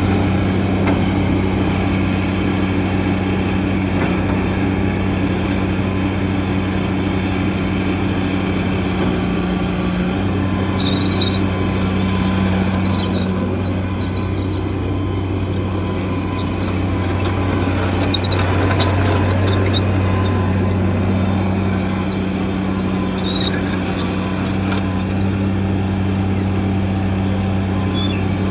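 MT55 walk-behind skid steer loader's engine running steadily, the pitch shifting slightly a few times, with a few brief high chirps over the top.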